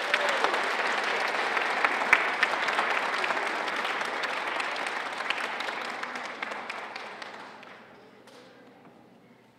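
Audience applauding, a dense patter of hand claps that fades and dies away about eight seconds in.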